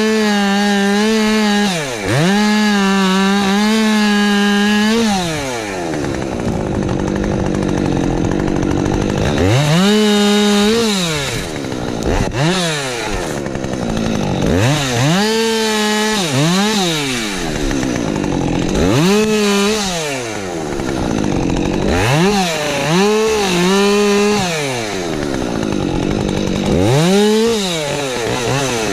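Husqvarna 550 XP Mark II chainsaw, a 50 cc two-stroke, revving up to full throttle and dropping back to idle in about six bursts. The first burst is held at full revs for about five seconds; the later ones are shorter.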